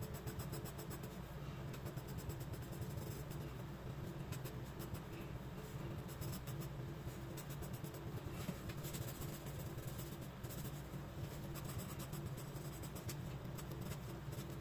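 Graphite pencil scratching on sketchbook paper in quick, repeated hatching strokes, over a low steady hum.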